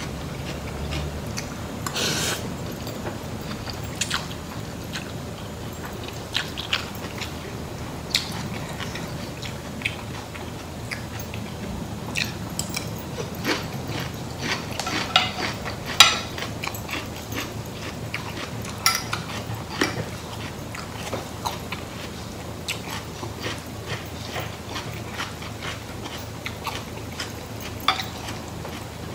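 Close-up eating sounds: chewing and biting on rice vermicelli noodles, chicken feet and vegetables, with scattered short clicks from a fork and spoon on the plate. The sharpest click comes about halfway through.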